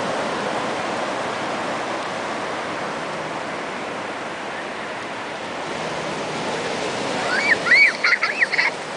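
Ocean surf washing steadily on a sandy beach. Near the end, young girls give a quick run of high-pitched squeals, rising and falling, as they run into the breaking waves.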